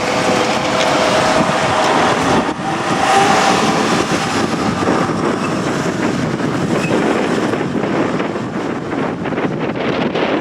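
JR Kyushu electric train running past close by: a steady rush of wheel and air noise, with rapid crackling near the end.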